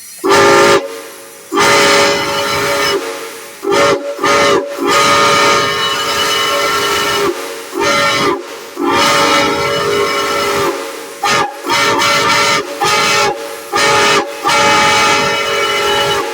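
A steam whistle blown in about a dozen blasts of uneven length, short toots mixed with long blows of two to three seconds, sounding several steady notes at once over the hiss of escaping steam.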